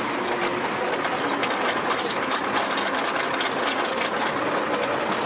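Tractor engine running steadily under load while pulling a ridging implement through soil, with a fast, even mechanical clatter.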